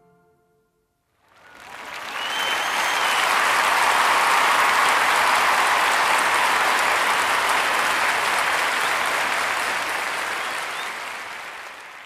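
Concert audience applauding: the orchestra's last note fades out, and after a moment of silence the clapping starts about a second in, swells, holds steady, and begins to thin near the end. A short whistle sounds through the clapping about two seconds in.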